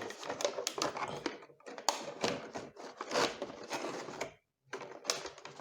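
Irregular clicks, taps and rustling of a Zebronics Zeb Bang plastic Bluetooth headset and its packaging being handled, with a short pause about four and a half seconds in.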